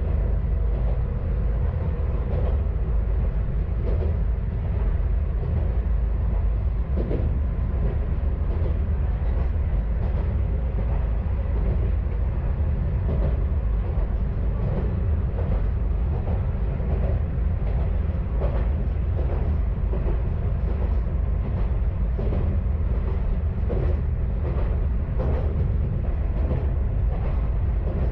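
Kanto Railway KiHa 532 diesel railcar running along the line: a steady low diesel rumble with wheels clicking and knocking over the rail joints.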